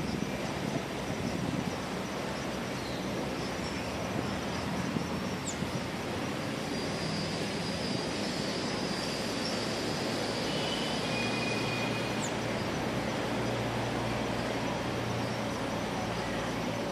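Steady outdoor background noise with distant road traffic, and a few faint high chirps near the middle.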